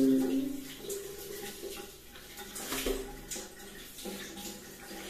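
Shower water running and splashing onto a person's head and body, a steady spray with irregular splashes.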